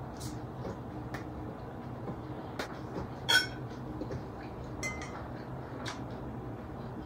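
Tableware clinking during a meal: scattered small clicks of a spoon and fingers against plates and bowls, with one louder ringing clink about three seconds in and a smaller one near five seconds.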